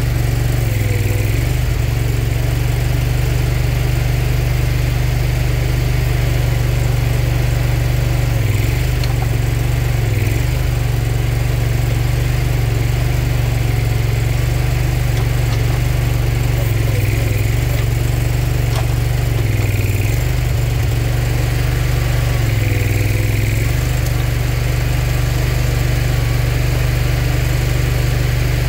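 The Kohler 27 hp Command Pro V-twin engine of a Boxer 427 tracked mini skid loader running steadily. Its low note dips briefly several times as the rotating grapple's hydraulics are worked.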